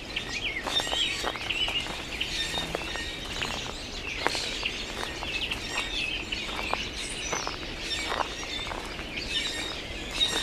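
Many small birds chirping and singing all around. Steady footsteps crunch on a path of crushed shells, about one and a half steps a second.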